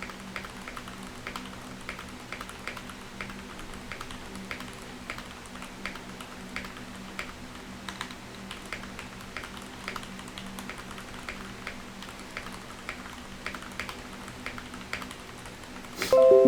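Continuous typing on a Keychron K8 Pro mechanical keyboard with Gateron Red linear switches: soft, even key clicks at about three a second over a low steady hum. Just before the end a louder burst of music with held notes cuts in.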